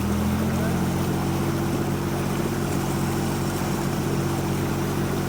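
Vehicle engine idling steadily, with a slight rise in pitch just after the start.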